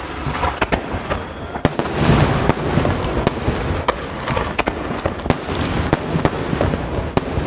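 Large aerial fireworks shells (10-inch shakudama) bursting in rapid succession: sharp reports every fraction of a second over a continuous rumble, building to its loudest about two seconds in.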